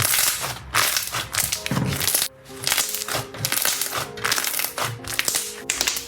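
Slime being squished and pressed, giving a quick run of short crackling, crunching bursts, over background music with held notes.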